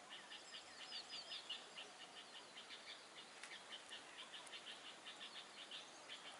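Faint birds chirping: short high notes repeated several times a second, with a run of quick sweeping whistled notes about half a second to a second and a half in.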